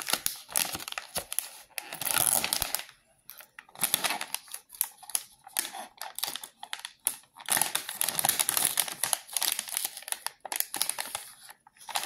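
Plastic candy wrappers crinkling and crackling in irregular bursts as a small wrapped milk soft candy is unwrapped and its pouch handled.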